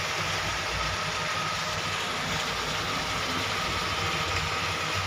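Steady mechanical hum and hiss with a faint constant whine, unchanging throughout.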